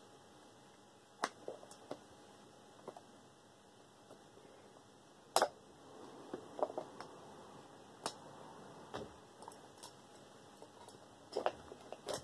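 A few scattered sharp clicks and knocks of small metal parts and tools being handled while a desk fan is taken apart. The loudest comes about five seconds in, with two close together near the end.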